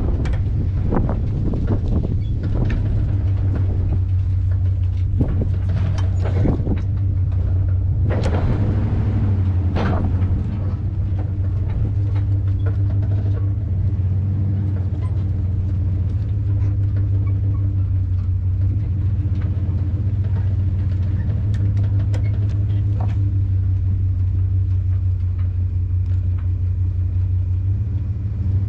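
A small engine running steadily at a constant speed, with scattered knocks and clunks over about the first ten seconds.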